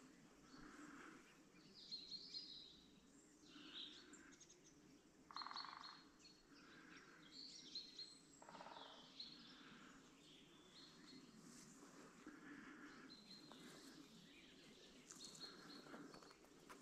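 Faint wild birds calling: repeated short high chirps and, every second or two, brief harsher calls, over a steady low background hum.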